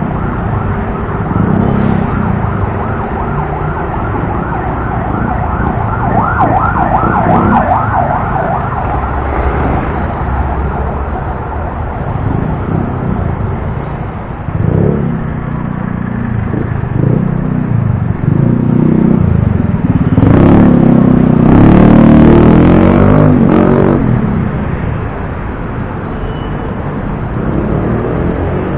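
City road traffic heard from a bicycle: a steady rumble of engines and tyres. A siren wavers rapidly up and down for a few seconds about five seconds in. A heavier engine swells loudest about two-thirds of the way through.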